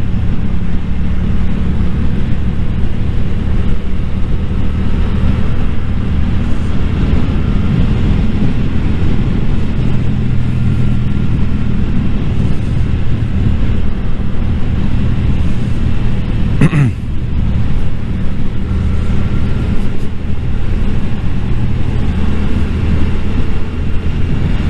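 Yamaha motorcycle engine pulling steadily at cruising speed, heard from the rider's own bike under heavy wind rush on the microphone. There is a brief dip and sweep in the engine note about two-thirds of the way through.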